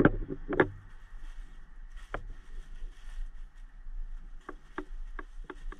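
Scattered clicks and knocks of gear being handled under the head of an ambulance gurney, two of them louder right at the start, over a low steady hum.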